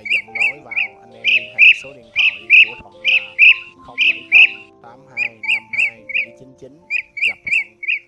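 Blue-throated bee-eater calling: short sharp calls in quick runs of two to four, several a second, repeated throughout.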